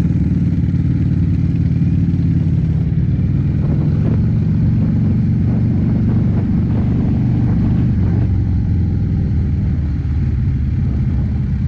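Harley-Davidson motorcycle's V-twin engine running steadily while riding.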